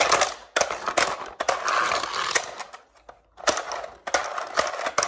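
Plastic parts of a Jackson Storm toy hauler playset being handled: a continuous clatter, then several separate sharp clicks in the last second and a half.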